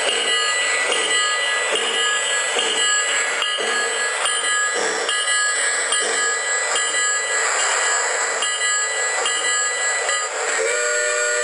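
A model passenger train running past on the layout's track: a steady rolling noise with repeated clicks of the wheels over the track. About a second before the end, a train whistle starts blowing as a chord of several pitches.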